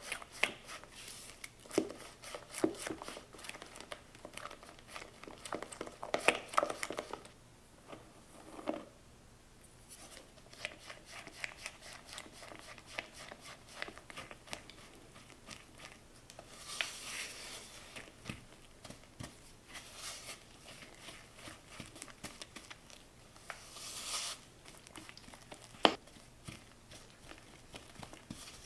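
Silicone spatula stirring and scraping sticky cookie batter around a plastic mixing bowl in quick, repeated wet strokes, with flour later being worked in as the mix thickens to a dough. One sharp click a few seconds before the end.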